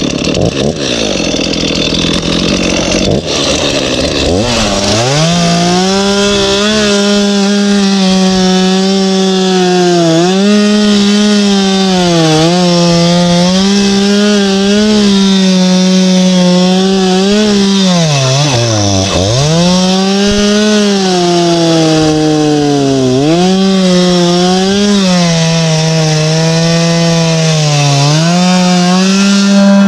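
Two-stroke petrol chainsaw revved up to full throttle about four seconds in, then cutting into a log. Its high engine note sags each time the chain bites into the wood and picks back up, with one deep drop in pitch about two-thirds of the way through.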